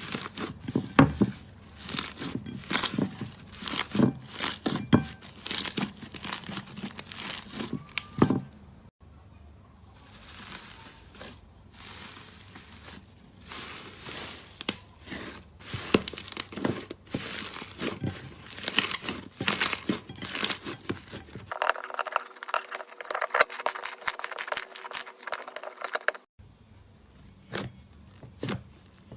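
Slime being squeezed and pressed by hand, giving a dense run of sticky crackles, pops and snaps. It eases off for a few seconds in the middle, and later a smoother, duller squishing takes over for a few seconds.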